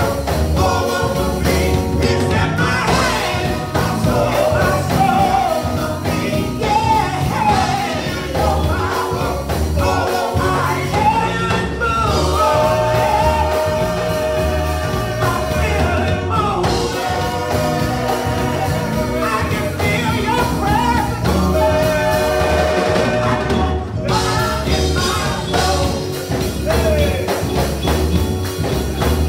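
Gospel song: a small group of singers with microphones singing, with long held notes, over accompaniment with a steady beat.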